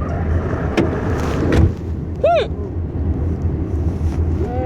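Steady road rumble inside a moving car's cabin, with a knock about one and a half seconds in. Just after two seconds comes a short, high, voiced hiccup.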